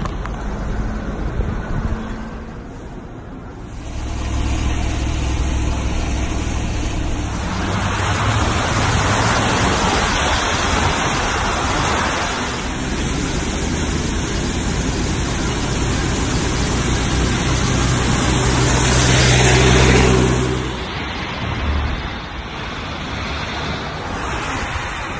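A vehicle engine running under a steady hiss, like traffic on a wet road. It is quieter at first, swells a few seconds in, is loudest about three quarters of the way through, and then drops away.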